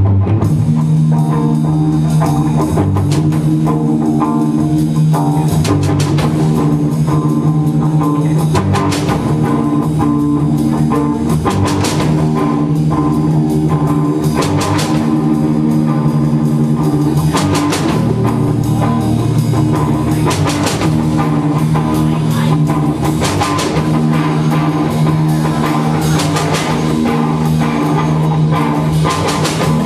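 Live rock band playing: electric guitar chords over a drum kit, starting together on a sudden loud hit at the very beginning and running on at a steady, loud level.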